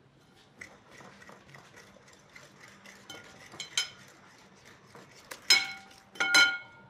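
Melted chocolate being scraped out of a glass mixing bowl with a spatula into another glass bowl: soft scraping and small ticks, then two clinks of glass that ring out briefly, a little less than a second apart near the end.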